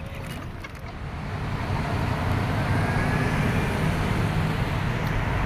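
Steady road traffic noise from passing cars on a city street, growing louder about a second in and then holding.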